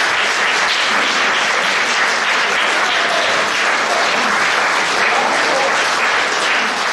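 Concert audience applauding, a steady round of applause from many hands.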